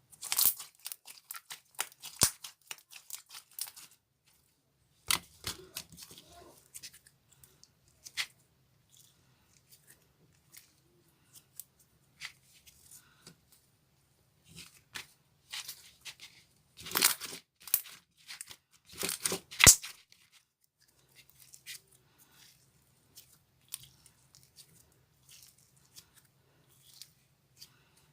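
Thick, chewy clear slime being squeezed, stretched and pulled apart by hand, giving irregular bursts of sharp crackling and popping clicks. The bursts come in clusters, with the loudest run of crackles past the middle.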